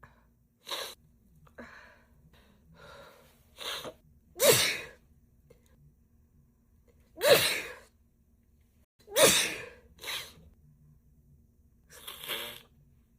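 A woman in a sneezing fit: three loud sneezes a few seconds apart in the middle, with shorter, softer bursts and breaths between them.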